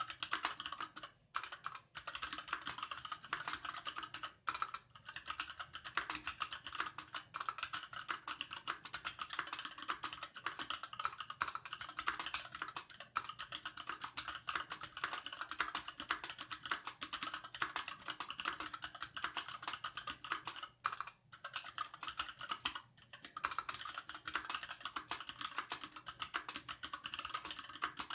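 Fast, continuous typing on a Varmilo VA68M mechanical keyboard with linear Gateron Red switches, dye-sublimated PBT keycaps and a solid aluminium case. The keystrokes run together in a dense stream, broken by a few brief pauses.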